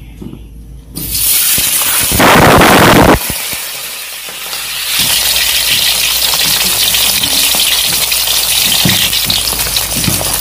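Whole fish frying in hot oil in a metal wok. It sizzles sharply as it goes into the oil, loudest about two seconds in, then settles into a steady frying sizzle.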